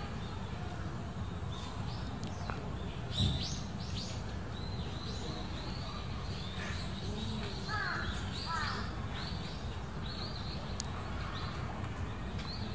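Small birds chirping and twittering in quick, repeated short calls over a steady low background rumble, with a single thump about three seconds in.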